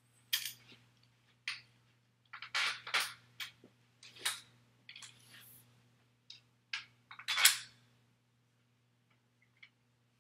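Metal backdrop-stand hardware clinking and knocking as the crossbar pipe is slid onto the stand's threaded top: a run of irregular sharp clicks and short clatters, the loudest about seven and a half seconds in.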